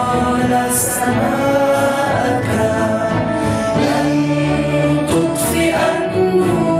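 A song sung in Arabic: a solo singing voice over instrumental backing.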